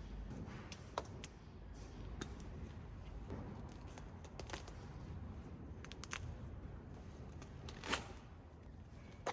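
Scattered sharp clicks over light scraping and rustling from hands-on work, with a sharper click about a second in and a louder one near the end.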